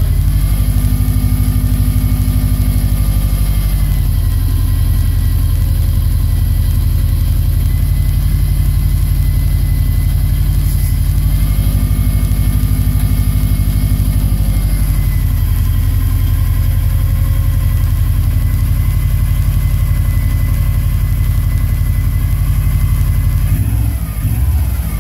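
Subaru EJ253 2.5-litre flat-four engine idling steadily after a new timing belt and water pump have been fitted, its note shifting slightly a few times; the sound dips about a second before the end.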